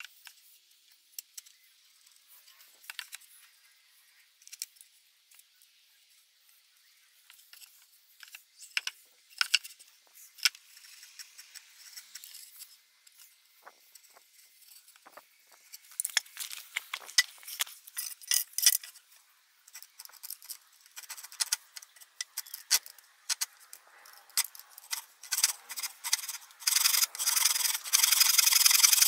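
Wood being rubbed and scraped by hand in scattered short strokes that grow busier. Near the end a steady, louder hiss starts.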